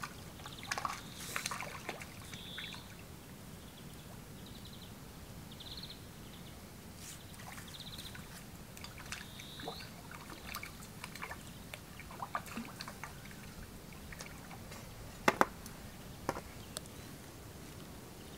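Outdoor pond-side ambience: short high trills repeated every second or two through the first half, scattered light clicks and knocks, and one sharp click about fifteen seconds in, the loudest sound.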